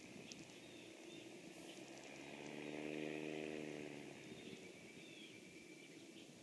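A motor's low, steady hum swells and fades about midway, as a passing engine would, over faint bird chirps and a steady high hiss of outdoor ambience.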